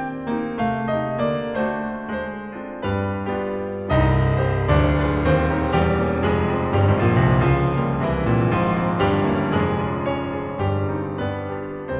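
Background piano music. About four seconds in it grows louder, with fuller low chords.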